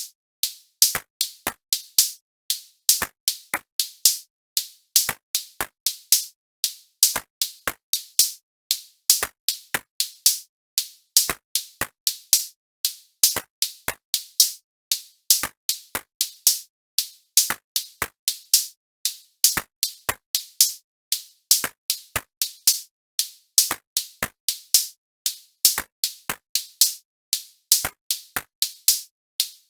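Electronic music made only of sharp, clicking drum-machine hits in a repeating pattern, about three a second, with silence between the hits.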